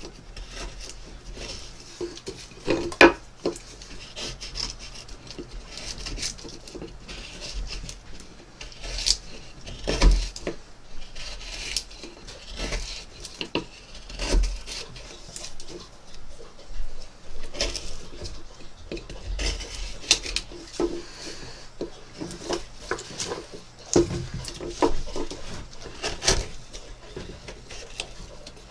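Bent gouge (kliukarza) hollowing the bowl of a cedar spoon: an irregular run of short scraping cuts, steel shearing through wood, with the odd sharper knock. The cedar is cutting stubbornly and resisting the blade.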